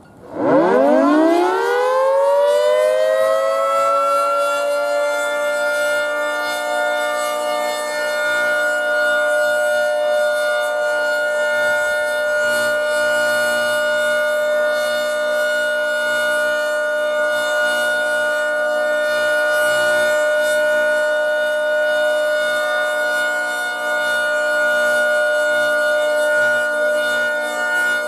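Federal Signal 3T22 outdoor warning siren winding up, its pitch climbing fast over the first couple of seconds. It then holds a steady tone of several pitches sounding together: the alert signal of a siren test.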